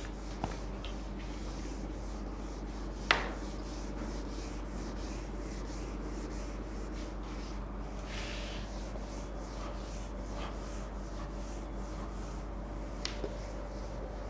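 Whiteboard duster wiping marker writing off a whiteboard in repeated rubbing strokes, with one sharp knock about three seconds in and a couple of light clicks near the end.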